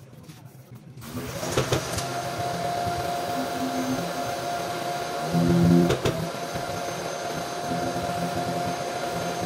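A power tool's motor starts about a second in and runs steadily with a constant whine, with a few sharp clicks along the way.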